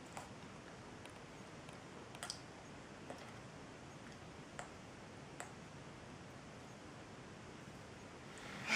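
Faint room hiss with a handful of soft, irregularly spaced mouth clicks as a jelly bean is chewed.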